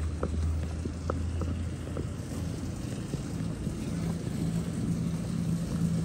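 Steady low hum of a running motor. It fades about two seconds in and a higher steady hum takes over, with a few light ticks scattered through.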